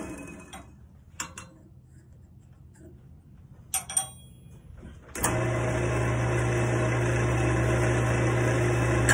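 Wood lathe motor winding down and going quiet, a few light clicks and knocks while it is stopped, then the lathe switched back on about five seconds in and running with a steady hum.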